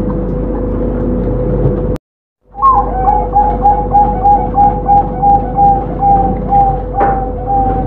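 Zebra dove (perkutut) cooing: after a brief drop to silence about two seconds in, a rapid run of short, even coos follows, about three a second, continuing to the end.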